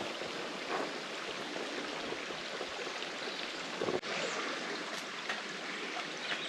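Steady trickle and splash of a small mountain spring's flowing water, with a brief break about four seconds in.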